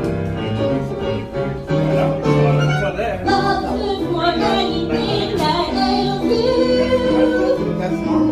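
Instrumental orchestral music without singing, carried by bowed strings playing a moving melody over sustained lower notes.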